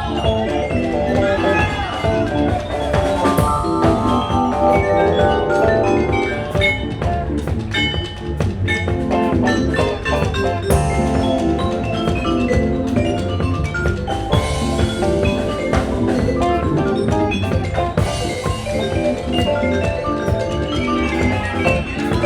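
Music with a steady beat: held melodic notes over regular percussion strokes.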